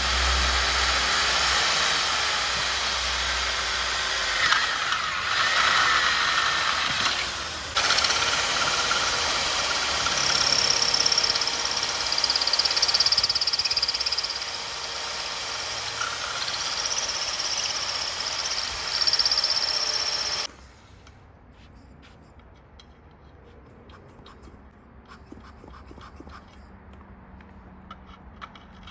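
Handheld power tool running steadily with a high whine, then stopping abruptly about twenty seconds in.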